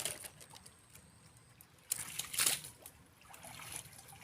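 Shallow water sloshing and trickling, with one louder splash about two seconds in.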